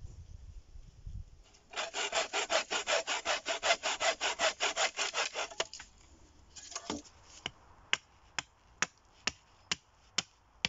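Hand saw cutting through a birch pole in quick, even strokes, about five a second, for some four seconds. After a short pause, a series of sharp knocks, about two a second.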